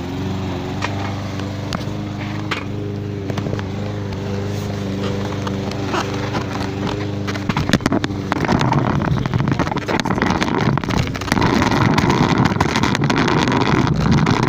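A lawn mower engine running steadily. About halfway through, a louder rough rumble with rattling clicks takes over: small hard wheels rolling over pavement as the kids start riding.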